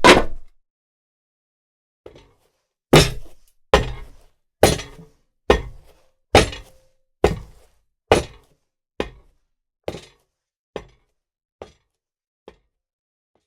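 Leather-shoe footsteps on a hard floor: one heavy footfall at the start, then about a dozen evenly paced walking steps that grow steadily fainter, as if walking away. A few steps leave a short ring.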